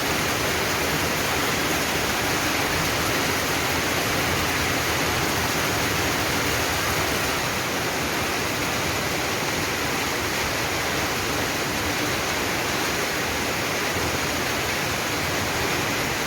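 Heavy rain falling, a steady dense hiss with no letup.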